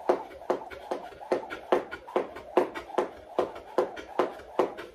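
Jumping rope: the rope strikes the floor and the jumper lands on every jump, in a steady rhythm of about two and a half jumps a second.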